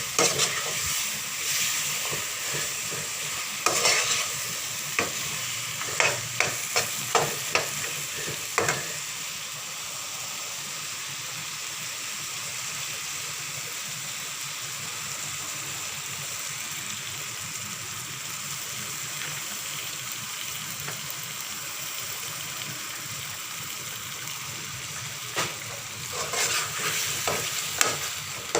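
Chicken curry sizzling in a frying pan while a utensil stirs it. There are sharp knocks and scrapes against the pan several times in the first nine seconds and again near the end, over a steady sizzle.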